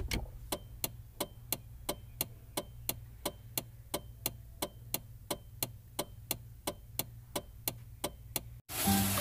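Steady mechanical ticking like a clock, about three even ticks a second, over a low steady hum. It stops abruptly near the end.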